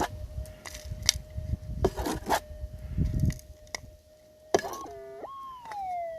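Minelab GPZ 7000 metal detector's steady threshold tone under rustling and scraping of soil handled in the hand. About four and a half seconds in, the detector gives a loud target signal that jumps up in pitch, holds, then slides back down: the gold nugget in the handful of soil passing over the coil.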